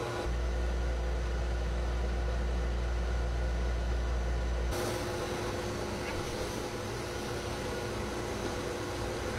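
Pet grooming blow dryer running steadily, blowing air into a drying cage, with a steady hum. A heavy low rumble in the first half stops suddenly about five seconds in.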